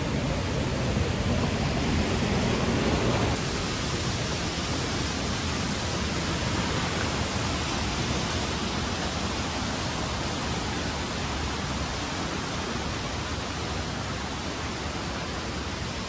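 Steady rushing noise of a waterfall, water pouring without a break; a little more low rumble in the first three seconds.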